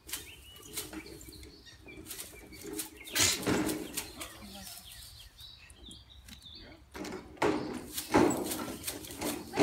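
Dry ornamental grass stalks rustling as they are cut and pulled with hand hedge shears, in several bursts; the loudest come about three seconds in and again around seven to eight seconds. Birds chirp faintly.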